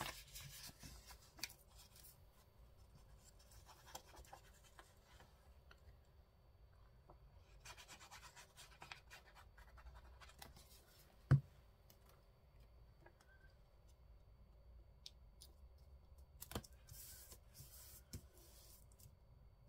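Faint rustling and scraping of paper being handled and pressed down onto a book page, in short spells. One short, sharp knock a little past the middle.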